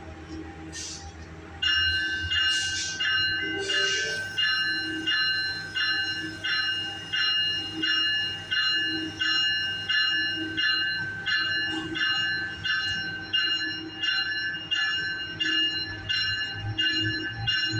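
Train bell on a Metrolink bi-level cab car ringing steadily, starting about two seconds in, at about one and a half strikes a second, each strike fading before the next. A few short hisses come in the first seconds.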